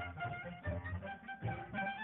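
Cartoon score music: quick, short pitched notes over a bass beat that comes in about every three quarters of a second.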